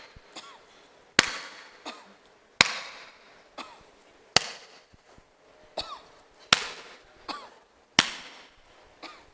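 Five sharp hand claps at uneven intervals. Each clap is answered, usually within about a second, by a short cough: a person coughing on cue as each clap is heard.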